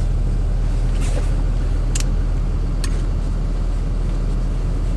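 Steady low hum of an idling engine, with three sharp light metallic clicks as the parts of a hand ratchet's head are handled and fitted.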